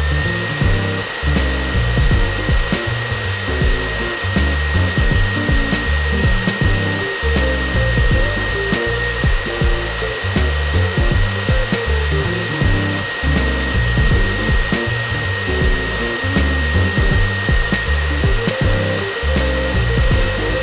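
High-velocity pet grooming dryer blowing air through its hose and nozzle onto a wet dog's coat: a steady rush of air with a steady high whine.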